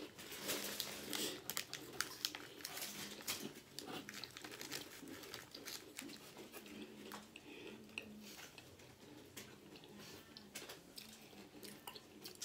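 Plastic biscuit wrapper crinkling and crackling as the packet is opened and a biscuit is drawn out, the crackles densest in the first few seconds and thinning towards the end.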